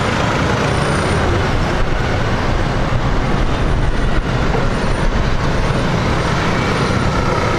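Rolls-Royce Trent 1000 engines of a Boeing 787-10 running at low taxi power: a steady rumble with a high hiss.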